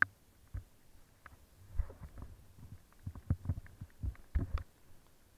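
Muffled, irregular thumps and taps on the camera of a motorbike in heavy rain, with a sharp click at the very start. The thumps come thicker and louder in the second half.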